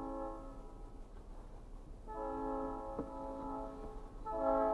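Diesel locomotive's multi-note air horn sounding a chord in blasts: one ending just after the start, a long blast about two seconds in, and a short one near the end. It is the long-long-short pattern of the grade-crossing signal.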